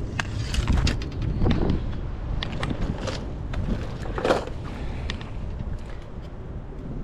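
Handling noise of fishing gear being moved and set down on paving stones: scattered clicks and knocks, the strongest about four seconds in, over a steady low rumble.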